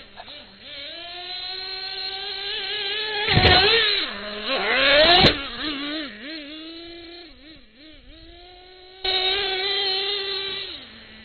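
Traxxas Revo RC monster truck's small nitro engine with a high-pitched buzzing whine. It revs up over a few seconds to full throttle with two loud, rough bursts at the peak, settles to a wavering idle, then is blipped hard to full throttle again about nine seconds in for under two seconds before dropping back to idle.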